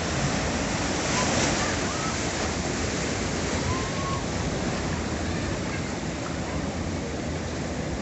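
Ocean surf breaking and washing over a rocky shore: a continuous rush of foaming water, loudest as a wave crashes about a second in.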